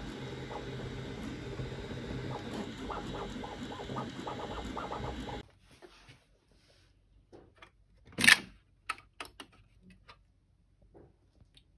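Bambu Lab 3D printer running a print, its stepper motors buzzing and whirring in quick shifting tones; this cuts off abruptly about five and a half seconds in. Then scattered light clicks of the printer being handled, with one loud sharp clack about eight seconds in as the flexible build plate is pulled off the bed.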